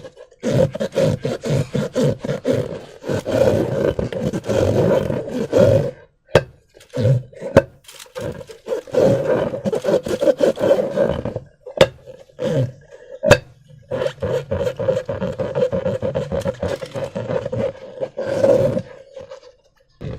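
Latex balloons being rubbed and squeezed: a rough, rasping rubber squeak in uneven stretches with short pauses, and a few sharp clicks in the middle.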